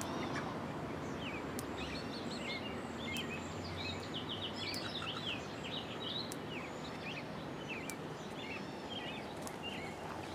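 Quiet outdoor background with many short, high bird chirps and peeps scattered throughout.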